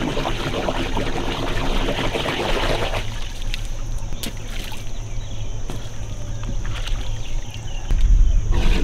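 Asian elephant's trunk splashing and sloshing in a shallow muddy puddle: dense wet splashing for the first three seconds, then sparser drips and slaps. A low rumble joins near the end.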